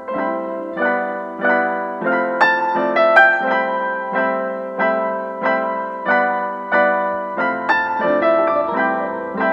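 Background piano music: a gentle, evenly paced pattern of notes, about one and a half a second.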